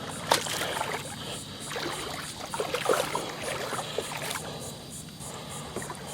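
Small boat moving slowly: a steady low motor hum with water noise, and a few light knocks or clicks.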